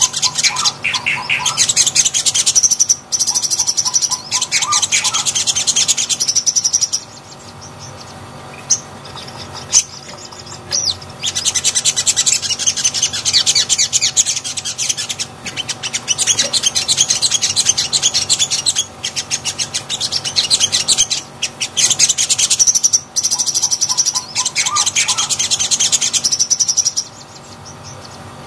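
A sogon (sogok ontong), a sunbird, singing in about four bouts of rapid, high chattering song, each lasting around five seconds, with short pauses between them.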